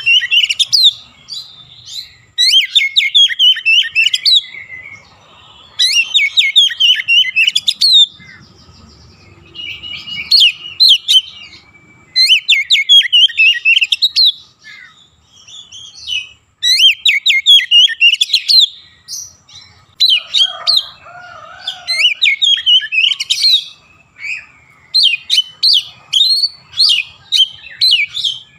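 Male oriental magpie-robin singing: loud bursts of rapid, varied chirps and trills, repeated every few seconds. A lower call sounds once, about two-thirds through.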